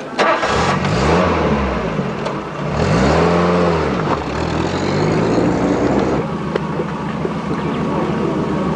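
Volkswagen Golf hatchback pulling away, its engine revving up and dropping back twice, then fading after about six seconds. A short knock at the very start.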